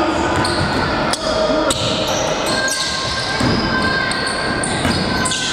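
Basketball game sounds in a large gym hall: the ball bouncing on the court with sharp echoing thuds, sneakers squeaking in short high squeals, and players calling out.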